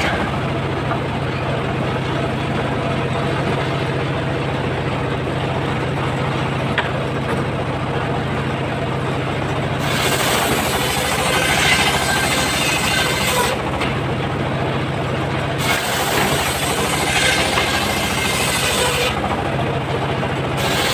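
Homemade engine-driven circular sawmill running steadily. From about halfway, its blade cuts through coconut palm wood in spells, adding a hissing rasp over the engine's hum.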